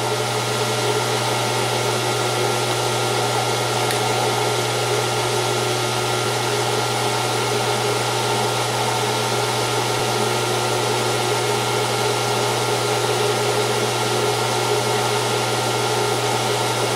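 Gear-head metal lathe running steadily at a low spindle speed of about 130 rpm: a steady motor and gearbox hum with a strong low drone and a few constant tones.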